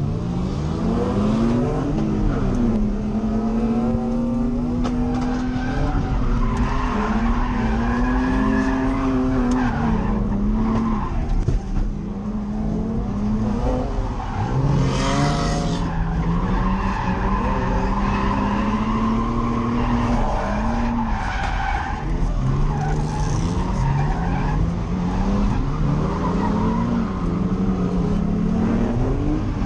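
Nissan 350Z's V6 engine revving up and down over and over while drifting, with tyres skidding and squealing.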